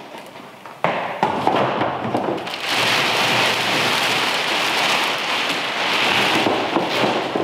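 Large clear plastic wrapping bag crinkling and rustling as it is pulled up and off a grill and bunched together. The crackling starts sharply about a second in and grows louder and denser from about three seconds in.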